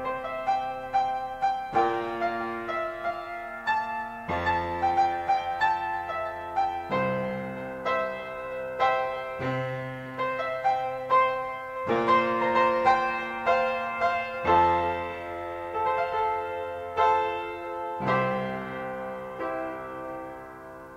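Instrumental keyboard music with a piano voice from a Fairlight CMI: a melody and chords over bass notes that change every couple of seconds, slowly dying away toward the end.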